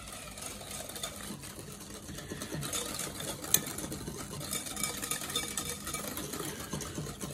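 Wire whisk beating thin batter in a glass bowl: a fast, steady rattle of the wires against the glass. A single sharp click about three and a half seconds in, as a steel measuring cup is set down on the counter.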